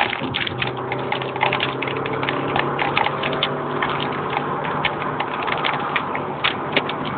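VW Gol Power's engine running hard at speed, a steady drone heard from inside the cabin, with rapid irregular clicks and rattles over it.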